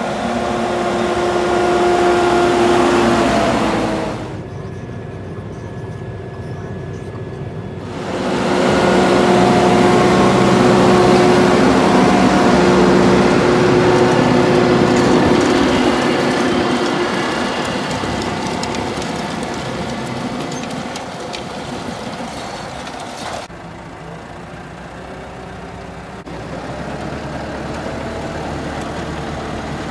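Tractor diesel engine running steadily in the field. It is loud in stretches and quieter and more muffled in others, about four seconds in and again about two thirds of the way through.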